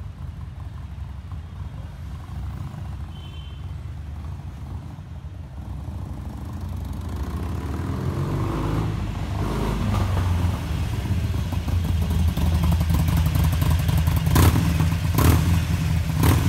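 Harley-Davidson Forty Eight's air-cooled V-twin with Screamin' Eagle exhaust, riding up and getting steadily louder as it closes in. It sends out a deep low rumble, with three sharp pops near the end as it pulls up close.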